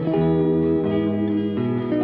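Background music led by guitar, sustained chords changing every half second or so.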